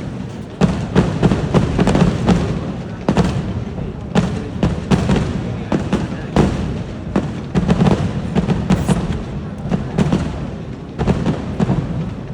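Vedikettu fireworks barrage: a rapid, irregular string of loud firecracker bangs and booms, about two to three a second, with no break.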